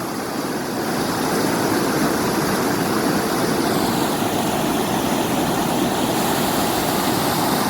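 Mountain river water rushing over rocks, a steady even noise.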